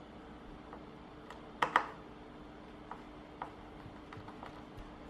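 A sharp double click about one and a half seconds in, then scattered light ticks as a screwdriver works the back-panel screws of a speaker cabinet. A faint steady hum runs underneath.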